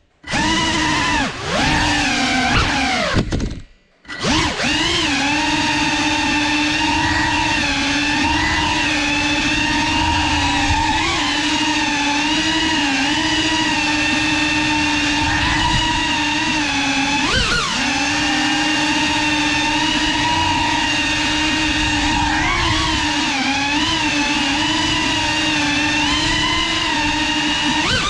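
Brushless motors and propellers of a CineLog 35 cinewhoop FPV drone whining in flight, the pitch rising and falling with the throttle. The whine cuts out briefly twice in the first four seconds.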